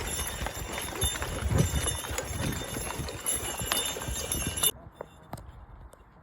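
Belgian draft horses working in harness, hooves clopping among a dense jumble of knocks and noise, which cuts off abruptly about three-quarters of the way through, leaving a few faint knocks.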